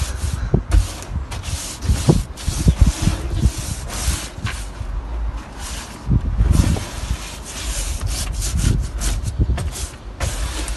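Stiff push-broom bristles scrubbing back and forth over plywood boat flooring, spreading a wet coat of white sealer, in a run of irregular brushing strokes.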